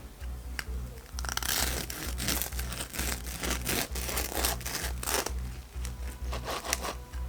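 Crinkling and tearing noises, as of paper or packaging being handled, with a few sharp clicks. They are loudest from about one to five and a half seconds in. A soft background music beat pulses low underneath.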